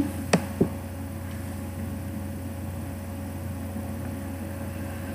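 Two quick mouse clicks early on, then a steady electrical hum of room tone with a faint constant tone running under it.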